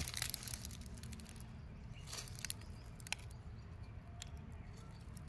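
Hands working through loose dry soil and dead leaves to pull up potatoes: faint scraping and rustling with a few light ticks.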